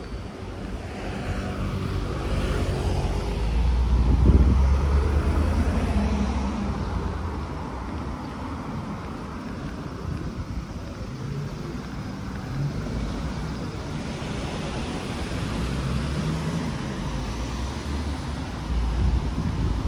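A car passing close by, its engine and tyre noise swelling to a peak about four seconds in and then fading, over steady street background noise.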